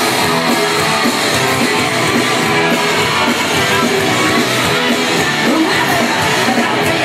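Rock band playing live, a dense wall of distorted electric guitars with drums at full volume.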